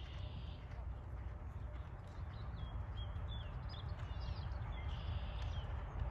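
Hoofbeats of a ridden horse moving across grass, under a steady low rumble, with birds chirping several times.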